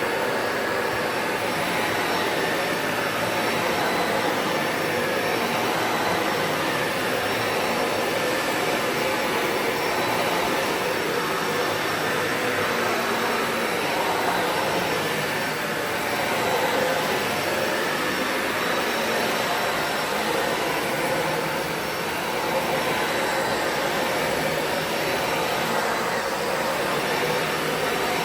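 Dyson Ball Animal 2 Total Clean upright vacuum cleaner running steadily while vacuuming, with its motor and airflow noise swelling and dipping slightly as it is pushed around.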